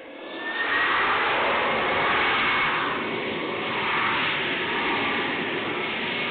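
Jet airliner engines running loud, swelling about half a second in, with a high whine that rises at the start.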